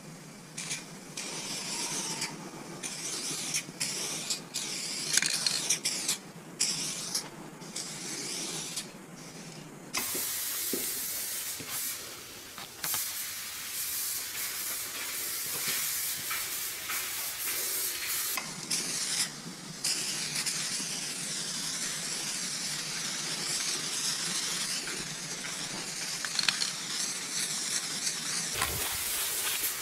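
Aerosol spray paint cans hissing as paint is sprayed onto a metal train car, first in short bursts with brief pauses, then in longer, near-continuous sprays from about ten seconds in.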